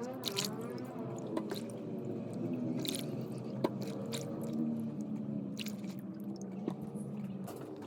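Wet kitchen handling: squishing and dripping of washed food, with scattered sharp clicks and taps over a steady pitched hum.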